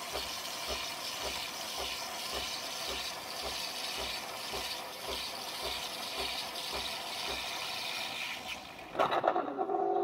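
De'Longhi Nespresso Lattissima Plus frothing milk into a cup: a steady hiss through the milk nozzle with a rapid low pulsing, about three to four pulses a second. It stops shortly before the end.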